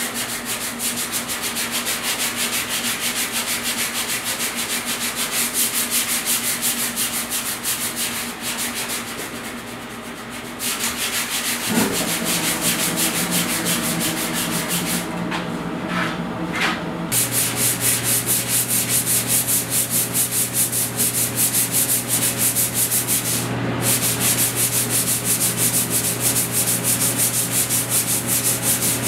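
Hand sanding with a sanding block on body filler over a pickup's steel hood: brisk back-and-forth strokes of sandpaper, about two a second, with short pauses just past the middle. The filler is being sanded flush over a high spot that was shrunk down.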